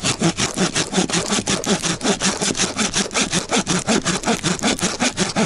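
Hand saw cutting dry deadwood, going back and forth in fast, even strokes.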